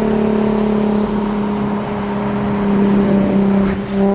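A car engine held at steady high revs, its pitch almost level with small shifts.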